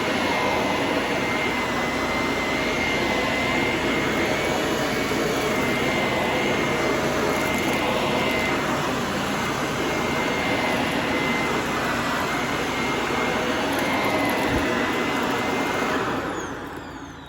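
Shark ZU632 Powered Lift-Away vacuum running steadily with a high whine over its airflow rush, then switched off about a second before the end, the motor winding down in a falling whine.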